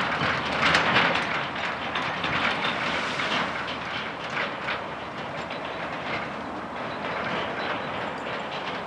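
Mechanical cable-operated level-crossing barriers (PZM2) coming down, the booms and their cable gear rattling and clattering. The clatter is loudest about a second in, then fades to a lighter rattle as the booms settle closed.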